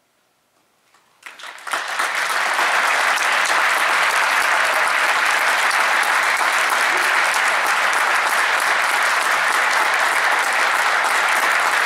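Concert audience applause: about a second of near silence, then a few first claps that swell within a second into full, steady applause from a large hall audience.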